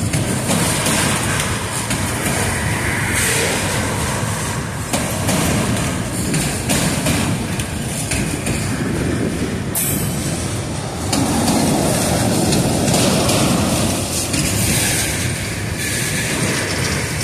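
Freight train of auto rack cars rolling past: a continuous rumble and rattle of steel wheels on the rails, swelling and easing as the cars go by.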